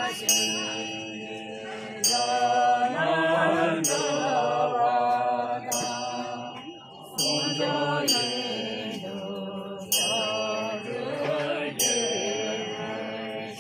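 Funeral mantra chanting by voices in a sung, wavering line, with a metal bell struck about once a second, each strike ringing on under the chant.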